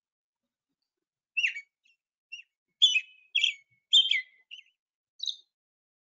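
American robin song: a run of short whistled phrases repeated back to back, starting about a second and a half in and stopping shortly before the end.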